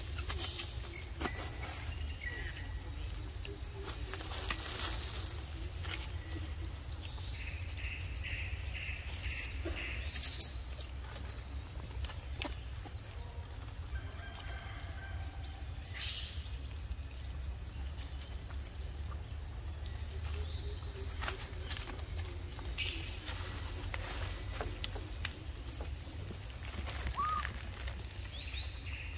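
Outdoor ambience: a steady high-pitched insect drone over a low rumble, with scattered bird calls, among them a drawn-out call twice and a quick run of chirps. A few sharp clicks, the loudest about ten seconds in.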